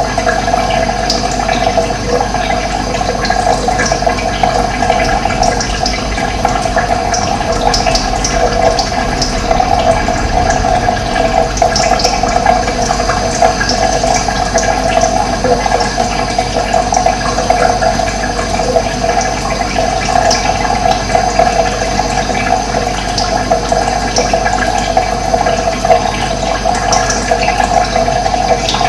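Running water making a steady rushing sound, with occasional brief high chirps of birds above it.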